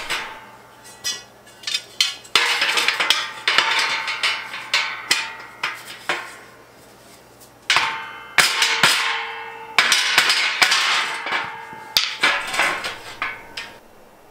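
Steel shelving frame being assembled: metal rails clanking together and knocked into place with a mallet, in rapid clusters of knocks that leave the metal ringing.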